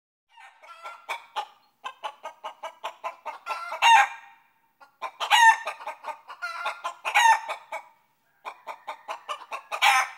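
Chicken clucking in quick runs of short clucks, each building to a loud drawn-out squawk, four times over.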